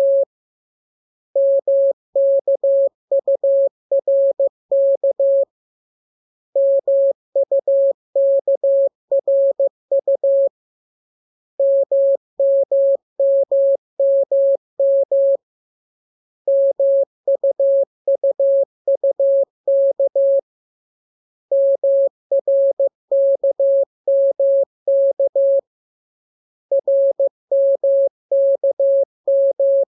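Morse code (CW) practice tone: a single steady pitch keyed in dots and dashes, sending the lesson's letters K, M, U and R. The letters come in groups of about four seconds, with about a second of silence between groups.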